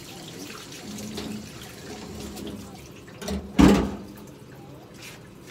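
Tap water running into a sink as the fish is rinsed, with one brief, much louder burst about three and a half seconds in.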